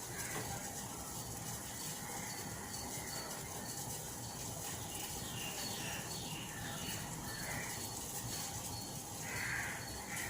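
Faint, scattered bird chirps over a steady low hiss, with a slightly louder call near the end.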